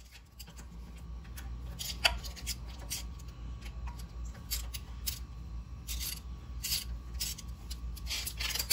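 Irregular short scrapes and clicks of metal parts and hand tools being handled at a truck's front steering knuckle, over a low steady hum.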